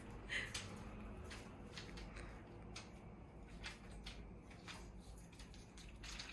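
Faint rustling and scattered light taps, with a short high squeak about half a second in.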